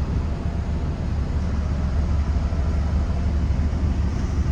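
Grain truck's engine running with a steady low rumble.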